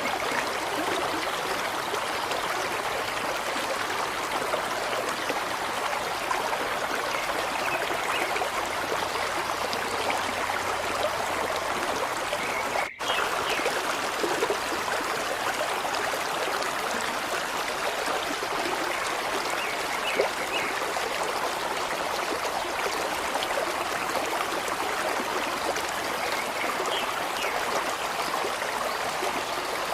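Running water, like a flowing stream, a steady even rush with a split-second gap about halfway through.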